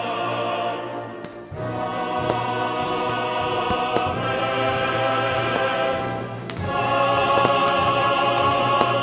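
Choral music with orchestral backing, a choir holding long sustained chords. The phrase breaks off briefly about a second and a half in, then swells louder about seven seconds in.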